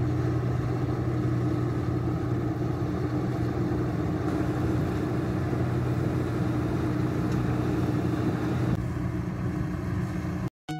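New Holland combine harvester running steadily while harvesting rice, a constant engine note with the rush of its cutting and threshing machinery. The sound cuts off abruptly near the end.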